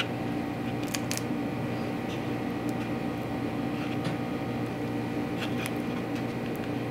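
A table knife spreading chicken salad onto crisp toasted bread, giving a few faint scrapes and clicks over a steady low mechanical hum.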